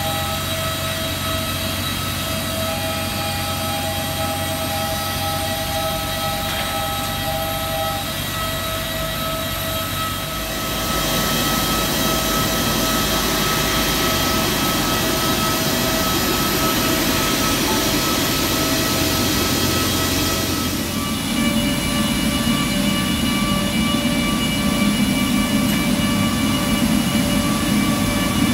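Steady whine of jet aircraft turbines on an airport apron: several high tones held over a low rumble. The mix of tones and rumble shifts twice, about a third and about two thirds of the way through.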